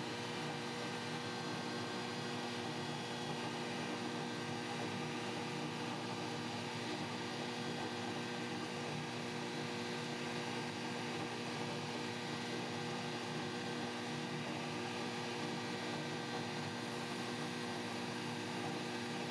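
A powder-coating booth's extraction fan running: a steady motor hum with several held tones under an airy rush, with a little more high hiss near the end.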